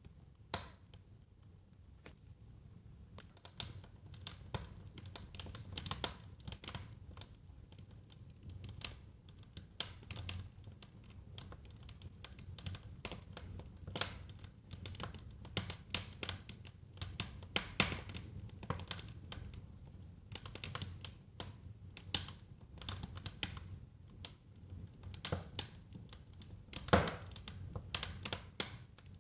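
Wood fire crackling in a fireplace: irregular sharp pops and snaps over a low steady rumble, with one louder pop near the end.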